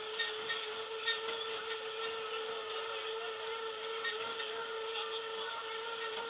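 Boardwalk tram car rolling along with a steady high whine from its drive, with light irregular clicks over the top.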